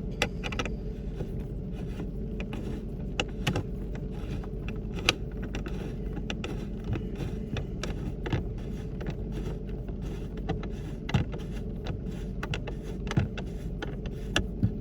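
Irregular small clicks and taps of a hand Torx screwdriver turning T25 screws into the plastic dash to hold a speaker down, over a steady low hum.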